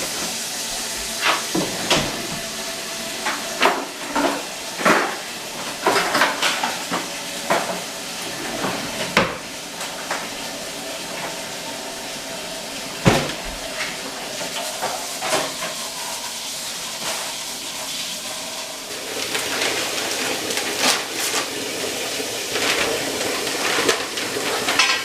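Kitchen cooking sounds: pots, pans and utensils knocking and clattering again and again over a steady sizzling hiss.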